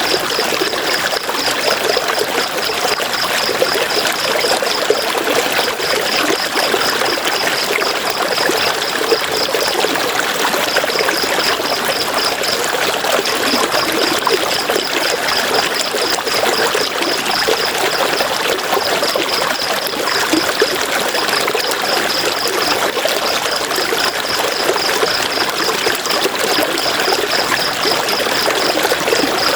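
River water flowing steadily, a continuous rushing and trickling. A high, fast pulsing chirp runs over it in long stretches broken by short pauses.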